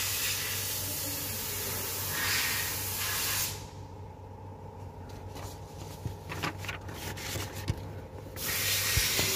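Steady background hiss over a low hum. For a few seconds in the middle the high hiss drops away, and a few faint clicks are heard.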